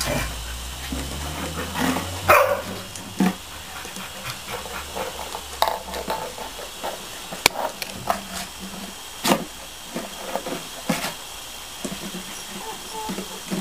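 Border collie puppies playing on wet paving: a few short puppy barks among scattered knocks, taps and scrapes as they nose and mouth things on the slabs.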